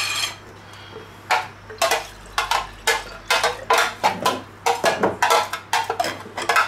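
A plastic container knocked against a stainless-steel pan to shake chopped egg out of it: a quick, irregular run of sharp clattering knocks.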